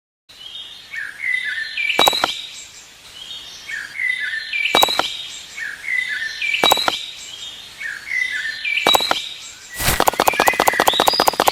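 Bird chirping in short repeated phrases about every two seconds, each with a sharp click. Near the end a rapid run of clicks starts under the chirps.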